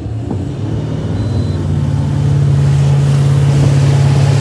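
Malibu wake boat's inboard engine accelerating from a standstill, rising in pitch and growing louder over the first two seconds, then running steady at speed, with the rush of the churning wake.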